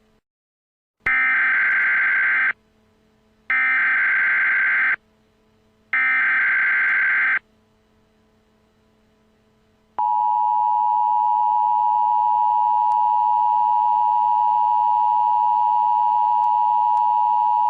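Emergency Alert System tones: three bursts of SAME header data, each about a second and a half long and about a second apart. Then, about ten seconds in, the steady two-tone EAS attention signal starts and keeps going.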